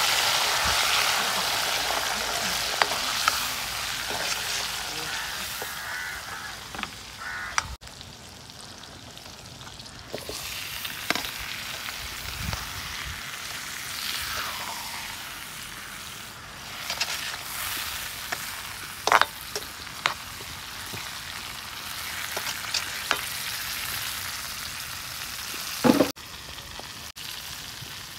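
Onions frying in hot oil in a metal wok, with a loud sizzle that fades over the first several seconds and goes on more quietly after. A metal ladle stirs and scrapes in the pan, with a few sharp clanks against it near the end.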